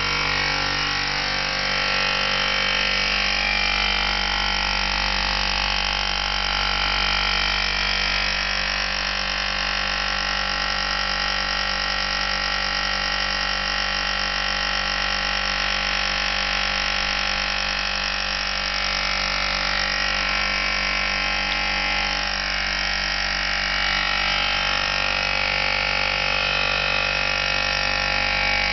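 Homemade compressor built from scrap parts, running steadily with a continuous hum that keeps an even level throughout.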